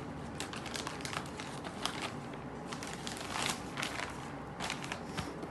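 Scattered clicks and short rustles of a shipping package being handled and opened.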